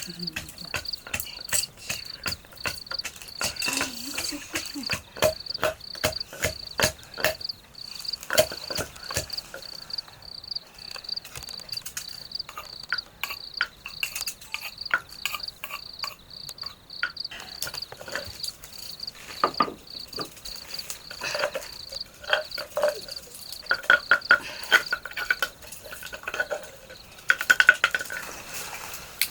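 Crickets trilling in a steady high tone that stops near the end, over frequent clinks and knocks of cooking pots and utensils.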